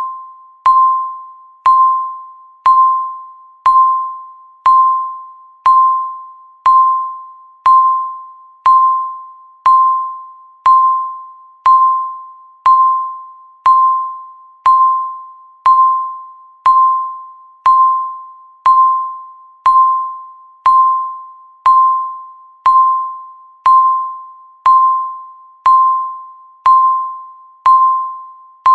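Countdown timer beeping once a second: a single-pitched, bell-like beep, struck sharply and fading away before the next.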